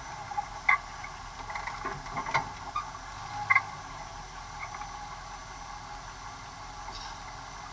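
Heard from inside an open off-road buggy: its engine running steadily at low speed, with several sharp knocks and rattles of the body and cage as it rolls over the rough dirt track, the loudest about a second in and again near three and a half seconds.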